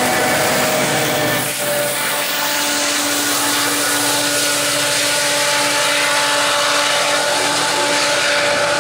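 GO Transit MP40 diesel locomotive running loud and steady under power, a heavy drone with a few steady whining tones over it. The sound changes abruptly about one and a half seconds in.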